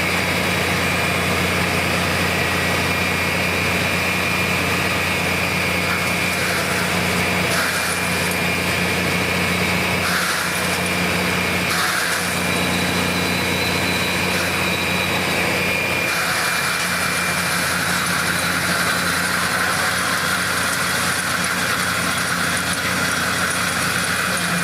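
Large stump grinder's diesel engine running steadily, a constant low hum with a high whine above it; the sound shifts a little in texture a few times without ever rising or falling.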